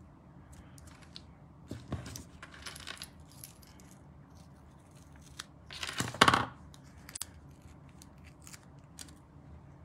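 Handling of paper and small foam adhesive pieces on a craft mat: light scattered clicks and taps with soft rustles, and a louder paper rustle lasting about half a second a little after six seconds in.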